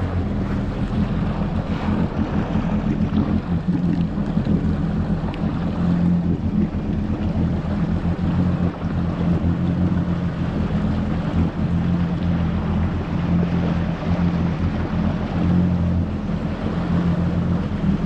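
Yamaha GP1800R SVHO jet ski's supercharged four-cylinder engine running at a steady speed, its hum holding one pitch throughout, over a steady rush of water and wind noise.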